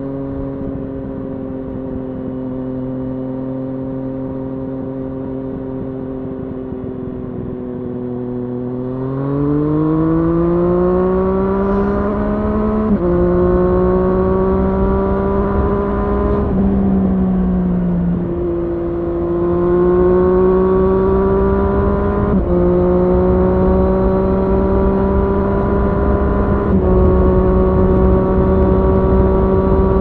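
Triumph Street Triple S inline three-cylinder engine through an SC-Project SC1-R slip-on exhaust with its dB-killer fitted, heard from the rider's backpack while riding. It holds a steady note at first, then accelerates about a third of the way in, the pitch rising and dropping sharply at each upshift, several times, with wind rush growing louder as speed builds.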